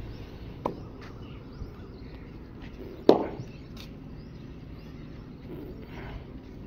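Two sharp slaps of a hand on bare, oiled skin during a massage: a lighter one under a second in and a louder one about three seconds in, over faint outdoor background noise.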